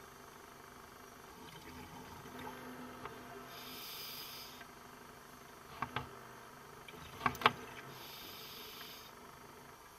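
Scuba diver's breathing underwater: exhaled bubbles hiss out of the regulator in two bursts, each about a second long, several seconds apart. A few sharp clicks come around six and seven and a half seconds in; the last is the loudest sound.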